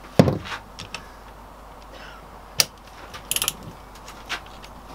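Torque wrench on the connecting-rod nuts of a VW Beetle crankshaft: a few sharp clicks, the loudest just after the start and another about two and a half seconds in, with a quick run of ratchet clicks about three and a half seconds in. The rod nuts' torque is being checked, the wrench clicking at its set torque.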